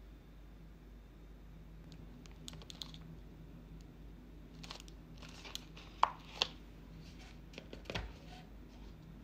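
Plastic food packaging (a clear salad container and a dressing sachet) being handled, with scattered crinkling rustles and a few sharp clicks, and a soft knock near the end as a paper coffee cup with a plastic lid is handled.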